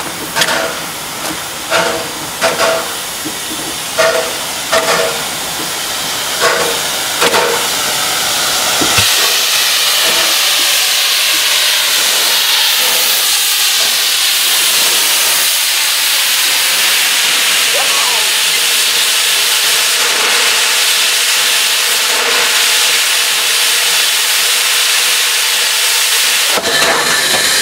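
Hr1 'Ukko-Pekka' steam locomotive rolling slowly in, with a series of sharp knocks, roughly in pairs, for the first several seconds. From about nine seconds on, a loud steady hiss of escaping steam takes over, and it shifts near the end.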